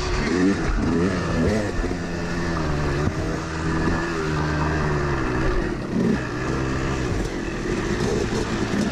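Yamaha YZ dirt bike engine revving up and easing off again and again with the throttle, heard from on board the bike.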